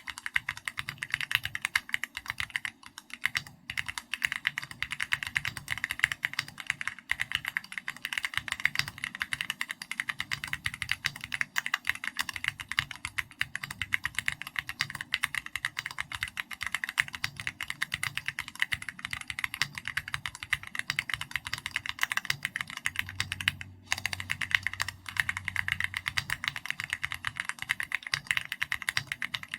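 Continuous fast typing on a custom mechanical keyboard: an SPM AL66B with linear Keychron Red switches and XVX keycaps. The keystrokes click in a dense, steady stream, with a brief pause about three and a half seconds in and another near the end.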